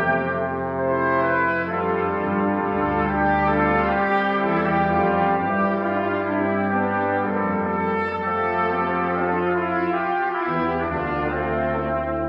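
Brass quintet (trumpets, French horn, trombone and tuba) playing sustained chords together, the notes changing every second or two, with a short break in the low notes just after ten seconds in.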